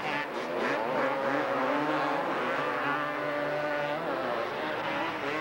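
Several racing ATV engines running and revving, their pitch rising and falling as the quads race around the track.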